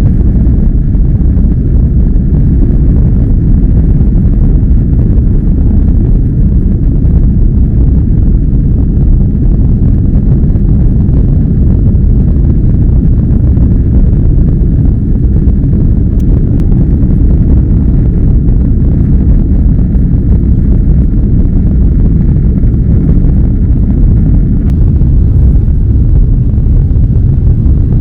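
Airbus A330-300's jet engines at high thrust during takeoff, heard inside the cabin as a loud, steady low rumble.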